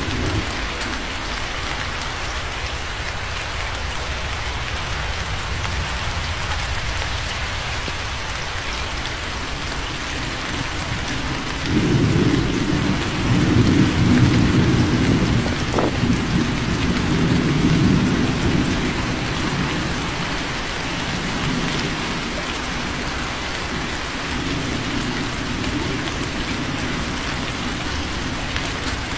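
Steady rain, with a rumble of thunder rolling in about twelve seconds in and dying away over some seven seconds; a fainter rumble follows near the end.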